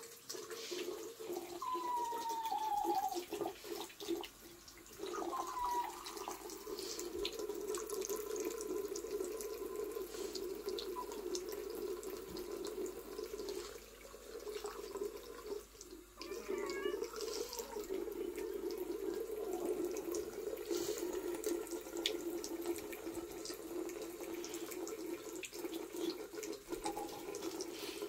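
Thin stream of water from a bathroom mixer tap running steadily into a ceramic sink and down the drain, with the splashing dipping briefly a few times.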